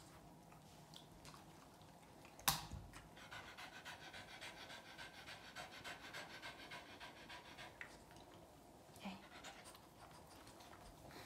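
Boston terrier panting with quick, even breaths, faint and close. A single sharp click sounds about two and a half seconds in, with a softer knock near nine seconds.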